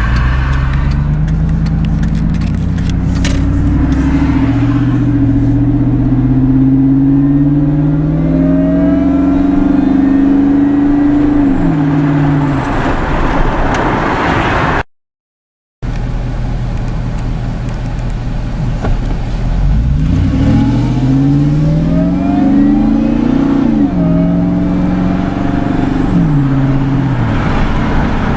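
2002 SVT Lightning's supercharged 5.4-litre V8 accelerating hard, its pitch climbing and then dropping back as the automatic shifts up. It cuts off sharply about halfway through, and after a short gap a second hard pull climbs through two more quick upshifts near the end.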